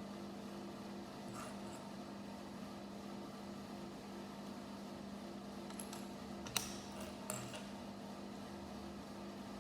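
Faint steady low electrical hum, with a few light plastic clicks from Lego pieces being handled: two sharp ones about two-thirds of the way in and a softer one early.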